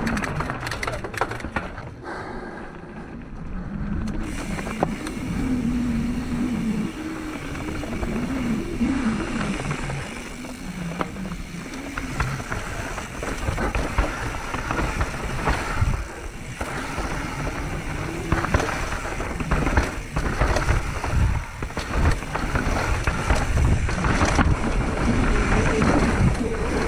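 Mountain bike riding down a rough, rocky trail: tyres rolling over dirt and rock, the bike rattling and knocking over the bumps, in an uneven, continuous din.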